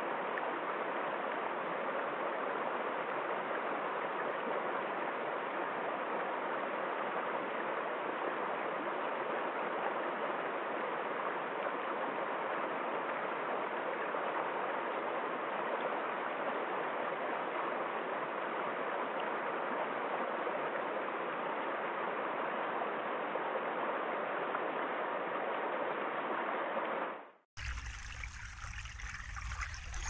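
Mountain stream rushing over rocks and small cascades, a steady, even rush of water. Near the end it fades out quickly and a different, smaller brook's trickle cuts in.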